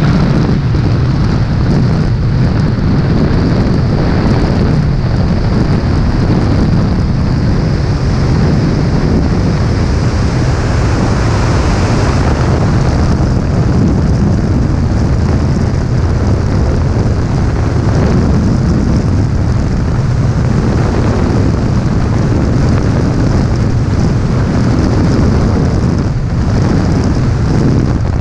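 Loud, steady rush of wind buffeting a helmet-mounted camera's microphone during a wingsuit flight at full flying speed.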